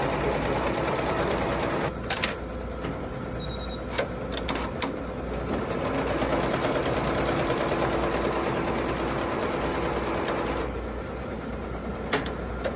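Barudan multi-needle embroidery machine stitching a logo into a hooped garment: steady running needle chatter, with a few sharp clicks now and then.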